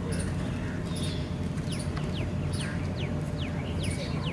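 Birds calling in a rapid series of short, high, downward-sliding whistles, over a steady low rumble.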